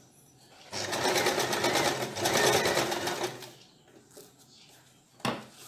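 Usha Wonder Stitch electric domestic sewing machine running a seam along folded fabric in one burst of rapid, even stitching of about two and a half seconds, then slowing to a stop. A single sharp click comes near the end.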